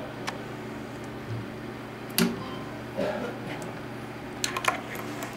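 A sharp click about two seconds in as the regulated DC bench power supply's rocker switch is flipped on, then a few small clicks and taps near the end, over a steady low electrical hum.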